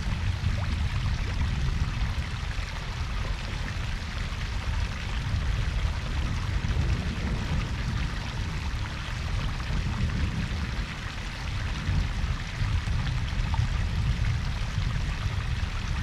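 Koi-pond waterfall and babbling brook: a steady, unbroken rush of falling and splashing water.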